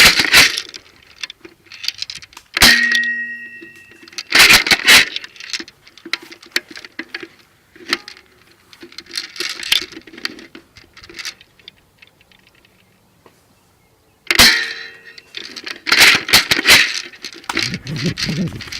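Airsoft guns firing in short clusters of sharp pops and clacks, mixed with rustling and knocks. One sharp hit about three seconds in rings briefly with a metallic tone. There is a quieter stretch shortly before the last cluster.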